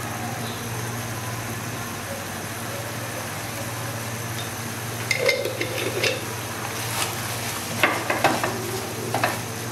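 Silicone spatula stirring and scraping through thick tomato-and-masala gravy in a pan, in several short strokes from about halfway in, over a steady sizzle and low hum.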